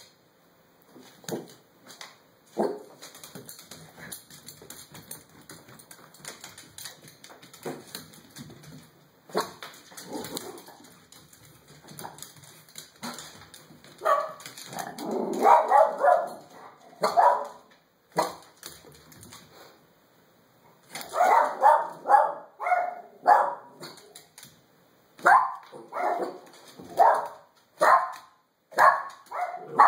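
Small dog barking at its own reflection in a mirror: a few single barks at first, then from about halfway quick runs of sharp yapping barks.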